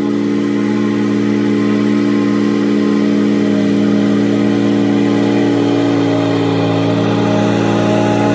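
Riding lawn mower's engine running steadily at working speed, a constant droning hum that grows a little louder as the mower approaches.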